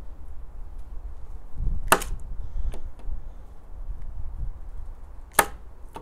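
Two sharp clicks about three and a half seconds apart, over a steady low rumble.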